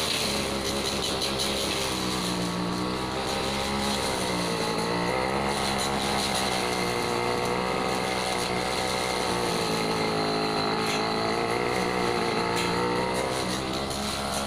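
Petrol brush cutter with a steel blade running hard while cutting hedge foliage, its engine pitch dipping and recovering a little several times as the blade takes and sheds load.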